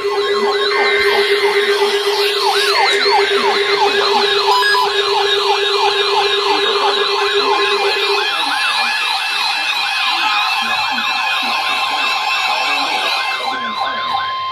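Emergency Alert System tones: the last squawks of the data-burst header, then a steady alert tone under a rapidly wailing electronic siren, about two up-and-down sweeps a second. The siren and tone stop together.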